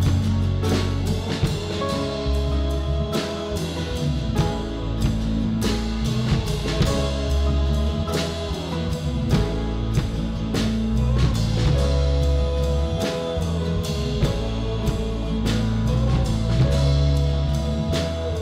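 A worship band playing a song with drums, bass and guitar: a steady drum beat over sustained bass notes that change every couple of seconds.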